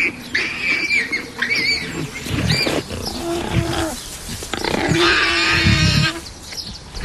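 Lions growling and snarling in several rough bouts, with higher-pitched calls among them.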